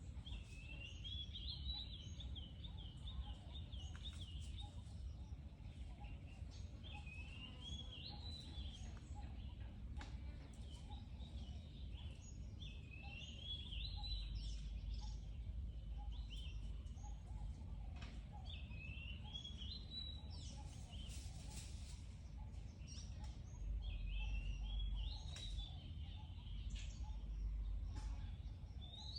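A bird singing short warbling phrases that repeat every few seconds, over a steady low rumble that swells twice.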